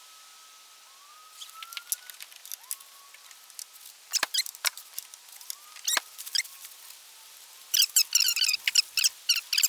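Birds calling outdoors: a few short rising whistles early on, then a loud burst of rapid chirping near the end. Two sharp clicks come around the middle.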